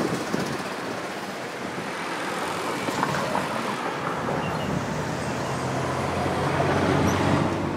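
Road traffic on a city street: cars driving past, the noise swelling as one goes by near the end.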